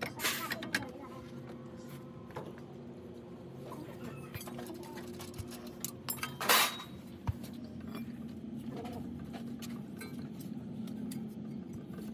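A car engine running with a steady hum, with a few light clinks and one short, louder noisy burst about six and a half seconds in.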